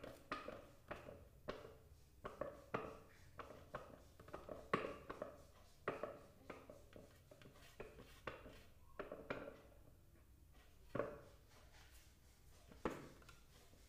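Faint spatula knocking and scraping against the clear bowl of a food-processor jar while scooping sliced onions out: a run of light knocks about two a second, then two single knocks near the end.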